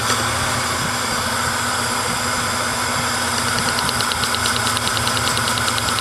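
Toyota 3.4-litre V6 (3400 four-cam) idling steadily during a misfire check. A fast light ticking joins about three seconds in.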